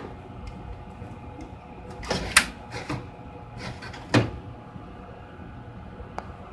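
A few sharp clicks and knocks from handling the front panel of a Tektronix 5103N oscilloscope, with the loudest strokes around two and four seconds in, over a faint steady hum.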